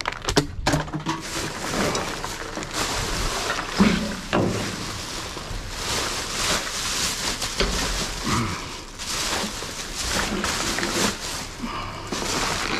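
Black plastic garbage bags rustling as they are grabbed and pulled about inside a steel dumpster, with scattered knocks of rubbish shifting.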